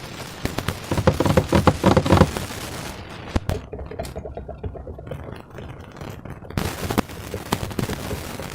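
Slime being worked by hand: a flurry of rapid sticky crackles and clicks about a second in, then sparser clicks with one sharp click partway through.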